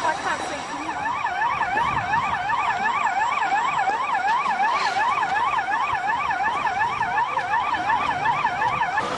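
Emergency vehicle siren in a fast yelp, its pitch sweeping up and down about three times a second, settling into a steady rhythm about a second in.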